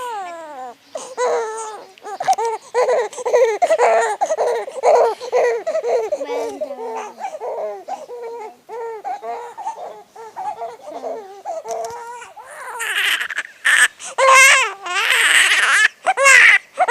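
Infant crying and fussing in short, wavering cries that grow louder and harsher near the end.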